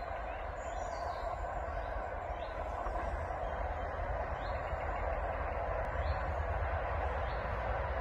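Locomotive convoy led by a Class 66 diesel approaching in the distance: a steady engine and rail rumble slowly growing louder. Birds chirp over it about once a second.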